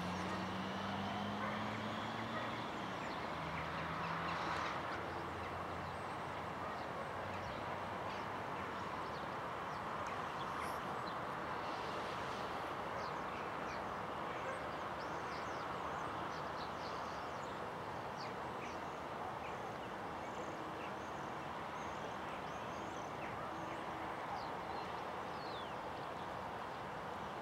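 Distant jet airliner on the runway, an Embraer regional jet, heard as a steady hiss, with small birds chirping faintly now and then.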